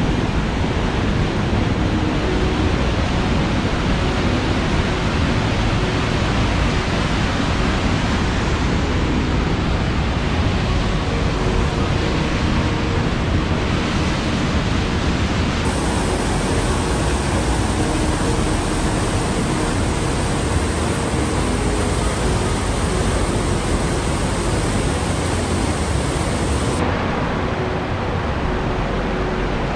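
A waterfall's steady rush of falling water, a thick, even noise across all pitches. Its tone shifts slightly about halfway through and again near the end.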